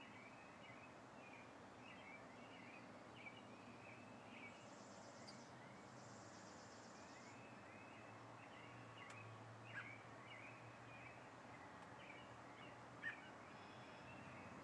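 Faint birdsong: songbirds singing a steady run of short chirping phrases, with a thin high trill a few seconds in. Two soft clicks near the end.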